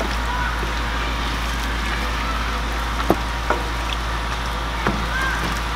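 Sundae and vegetables stir-frying in a deep metal pan: a steady frying sizzle over a low hum, with a few sharp clicks of the wooden spatula against the pan around the middle.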